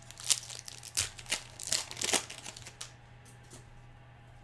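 Crinkling and rustling of a foil trading-card pack wrapper and the cards inside being handled: a string of short crackles and scrapes lasting about three seconds.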